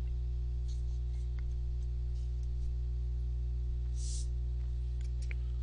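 Steady electrical mains hum underlying the recording, with a brief soft hiss about four seconds in.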